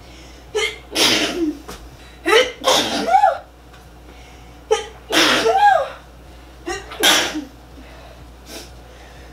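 A woman sneezing loudly several times in a row, each sneeze a sharp burst with a short voiced tail, about a second or so apart.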